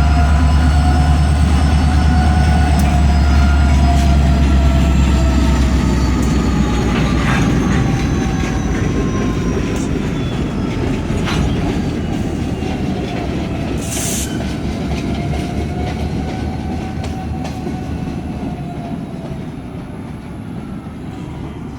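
Diesel-electric locomotive running with a high turbocharger whine over a deep engine rumble. The whine drifts slightly in pitch, and the sound grows steadily fainter as the locomotive moves away. Scattered clicks of wheels crossing rail joints.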